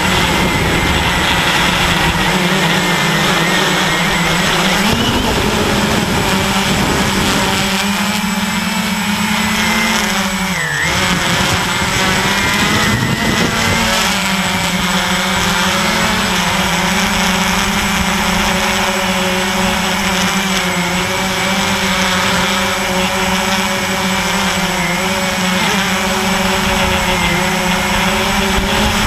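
Walkera QR X350 quadcopter's four brushless motors and propellers buzzing steadily in flight, heard close up from on board. The pitch steps up about five seconds in and dips sharply near the eleven-second mark before settling back, with a steady hiss of wind and propeller wash underneath.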